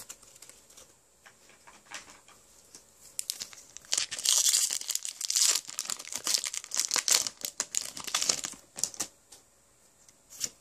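Foil Pokémon booster pack wrapper being torn open by hand: a long ripping tear about four seconds in, then crinkling and crackling of the wrapper for several seconds, dying away near the end.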